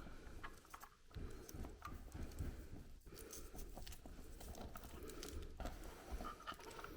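Handling noise as a LiPo battery pack is fitted into a model helicopter: scattered light clicks, taps and rustling of plastic and wrap, with a low rumble of handling from about a second in.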